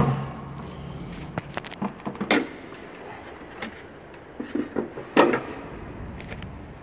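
Bonnet latch and bonnet of a Mitsubishi MQ Triton being worked open by hand: a series of metallic clicks and clunks, with a loud clunk at the start and another about five seconds in.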